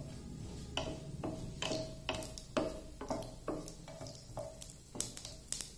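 Wooden spatula stirring mustard seeds in hot oil in a non-stick pan. It scrapes and knocks the pan about twice a second, each stroke giving a short ringing note from the metal pan, over a faint sizzle from the spluttering seeds.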